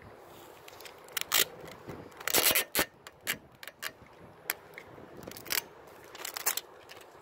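Clear packing tape being handled and stuck onto a car headlight: a series of sharp crackles and clicks, with a louder ripping burst about two and a half seconds in as tape comes off the roll.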